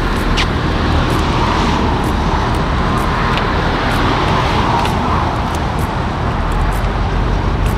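Steady rumble of motor-vehicle noise, swelling and easing off again over a few seconds, with small scattered clicks.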